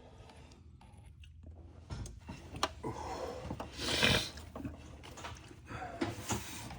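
Hand tools and parts being handled in an engine bay: scattered clicks and knocks, with a louder scraping rustle about four seconds in.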